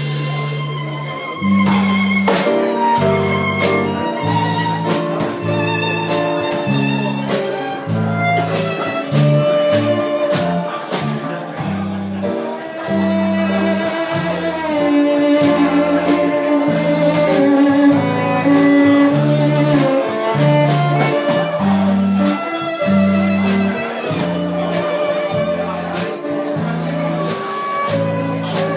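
Live small-band music: an amplified violin plays the melody over an electric bass line and a drum kit.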